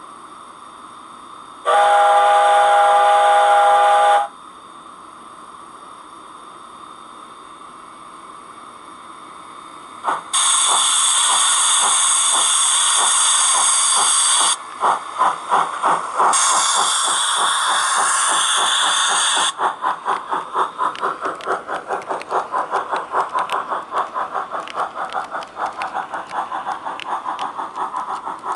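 Recorded steam locomotive sound for a C12 tank engine, played from a sound box through a small speaker in a model freight wagon. A steam whistle blows for about two and a half seconds, then a quiet steady hiss; about ten seconds in loud bursts of steam hiss begin with exhaust chuffs, which settle into regular chuffing as the locomotive gets under way.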